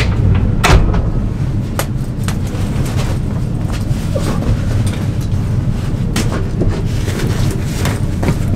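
Steady low rumble of a standing passenger train carriage, with several sharp knocks and handling noises as a jacket comes off and things are put away in the compartment; the loudest knock comes about a second in.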